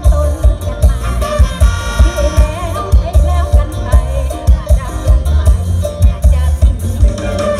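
Amplified live luk thung–mor lam band music with a heavy, steady bass-drum beat of about two beats a second under a wavering melody line.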